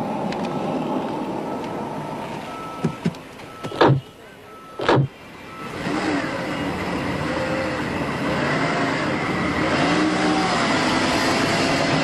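Two car doors shut on a black Mercedes-Benz sedan, about a second apart, over street traffic noise; the car's engine then runs and it pulls away, the engine note rising and falling.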